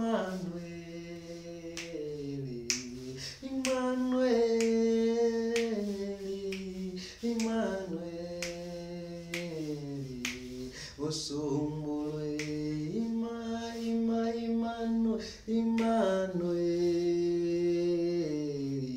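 A man singing a gospel song alone with no instruments, holding long notes that slide from pitch to pitch, with sharp clicks sounding through the song.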